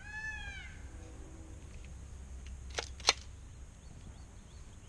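A short mewing call that rises and falls in pitch, right at the start. About three seconds in, two sharp metallic clicks a third of a second apart as the AR-style rifle is picked up and handled; the second click is the louder.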